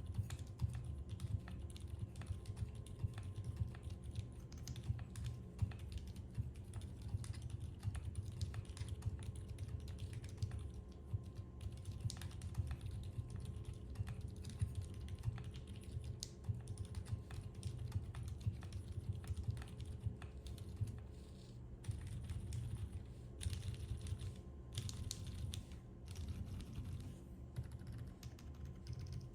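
Steady fast typing on a Geonworks Frog Mini keyboard with stock Outemu Lime silent tactile switches, an aluminium plate, Cherry-profile keycaps and no foam. The keystrokes come as a quick, dense run of muted, low clicks, with a brief pause about two-thirds of the way through.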